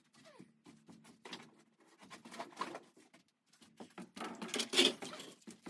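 Footsteps and shuffling on old wooden loft floorboards, a scatter of knocks and scuffs that grows loudest about four seconds in as the walker comes close. A brief falling creak sounds right at the start.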